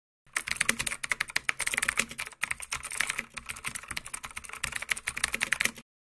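Rapid computer-keyboard typing, many keystrokes a second, which stops abruptly near the end.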